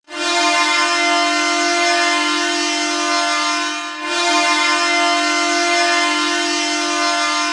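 Canadian Tire Centre's hockey goal horn sounding for a goal: two long, steady blasts of about four seconds each, on one sustained tone, with a brief dip between them.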